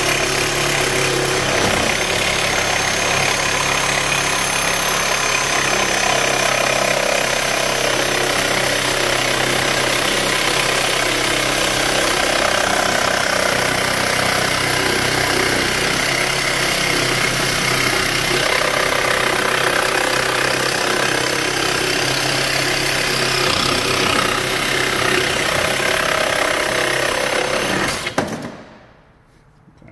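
Cordless reciprocating saw cutting through a steel exhaust pipe at a catalytic converter, running steadily with a rasping, rhythmic sound until the cut goes through and the saw stops about two seconds before the end.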